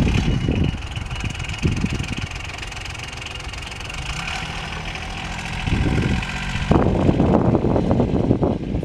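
John Deere Gator utility vehicle's engine running as it manoeuvres in snow. It settles to a quieter, steady idle for a few seconds in the middle, then picks up again near the end.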